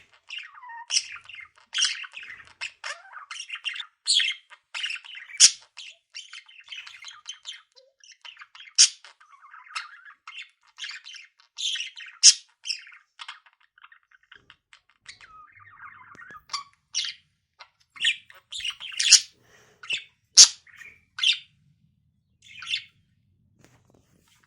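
Budgerigar chattering in a rapid string of short, sharp squeaks and chirps, with brief pauses between bursts; it falls quiet near the end.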